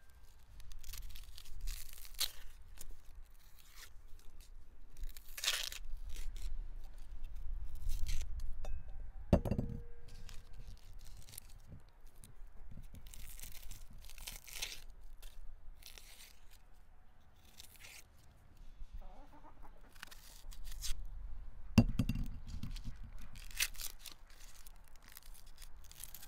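Knife peeling dry onions: papery onion skins crackling and tearing in short bursts, with a few sharp clinks of dishes, one ringing briefly.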